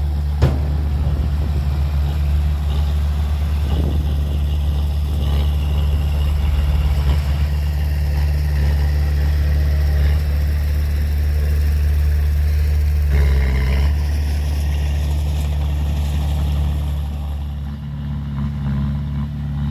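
Heavy diesel engine of earthmoving equipment running steadily at a constant speed, with a sharp knock about half a second in and the engine sound easing slightly near the end.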